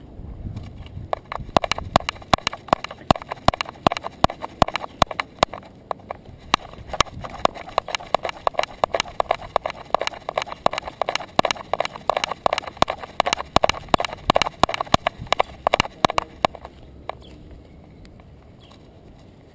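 Rapid clatter of a small dog's gait, picked up by a camera strapped to its back: quick, irregular clicks, several a second, as the dog walks on pavement. The clicking stops a few seconds before the end, when the dog halts.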